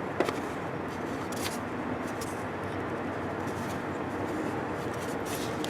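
A few light clicks of a tap and tap wrench being handled and fitted into a stripped exhaust-manifold stud hole, over a steady background noise.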